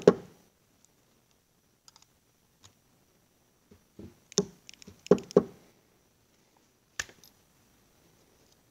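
Sharp clicks and knocks of small steel parts as a hydraulic engine lifter is taken apart and handled: one knock right at the start, a run of knocks and clicks about four to five seconds in, and one more about seven seconds in, with faint ticks between.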